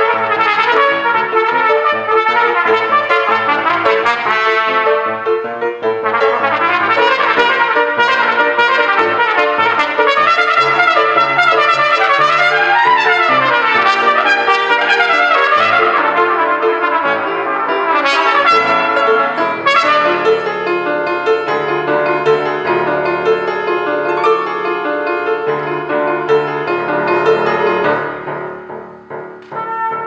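Cornet playing a fast, busy solo line of quick notes, with a rapid run up and back down about halfway through. It eases off briefly near the end, then comes back in.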